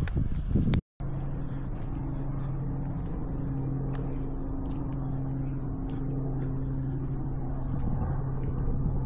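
A motor running steadily with a low, even hum and a few faint clicks. The sound cuts out briefly about a second in, then the same hum carries on.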